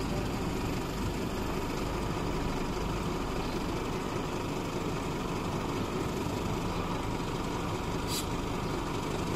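Skip loader truck's diesel engine running steadily while the truck carries a skip container hung from chains on its lifting arms, with a short click about eight seconds in.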